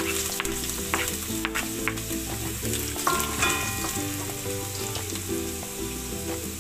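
Chopped garlic sizzling in hot cooking oil in a non-stick wok, with a wooden spatula stirring and now and then clicking against the pan.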